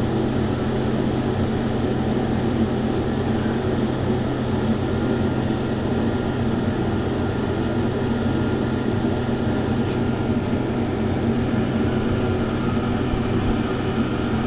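A motor or engine running steadily, a low, even hum that does not change.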